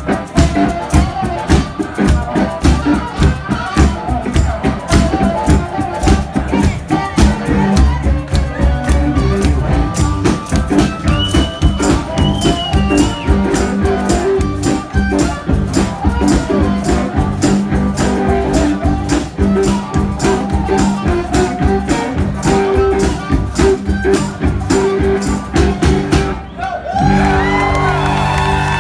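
Live blues-rock band playing a driving song with a steady drum beat and a sung or played melody. About 26 seconds in the band stops abruptly, then comes back in on a held closing chord.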